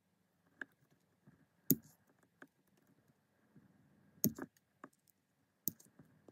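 Stainless-steel nail tip cutter snipping the ends off clear gel nail extension tips: a series of sharp clicks and snaps, the loudest about two seconds in and just past four seconds.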